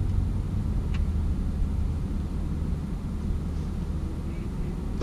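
A vehicle's engine running steadily, a low rumble, with a faint click about a second in.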